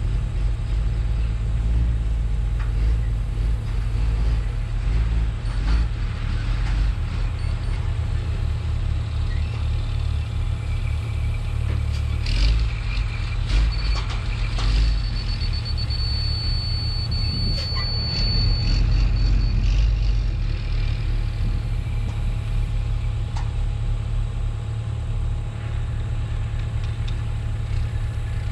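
Caterpillar mini excavator's diesel engine running steadily with a low drone. A few clanks come just before the middle, and a thin high whistle sounds for a few seconds just past it.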